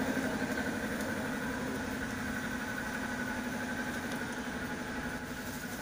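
An engine idling steadily with an even, fast pulse.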